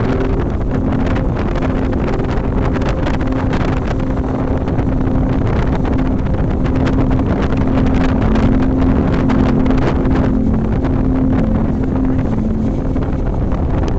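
Road vehicle's engine running at speed, mixed with wind rushing over the microphone.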